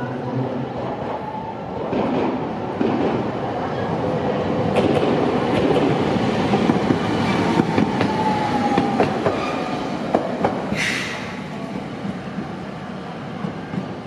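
Toden Arakawa Line tram running past at close range. The running noise swells to a peak midway and fades, with a few sharp clicks of the wheels over the rails and a faint whine. A short hiss comes near the end.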